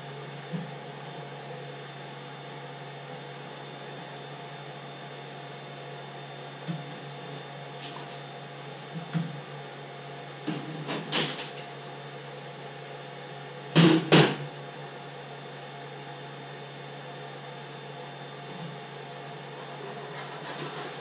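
Steady hum of the cooling fans of a powered-on Creality CR-10 3D printer, with scattered knocks and clatters of parts being handled on the table. The loudest is a sharp double knock about two-thirds of the way through.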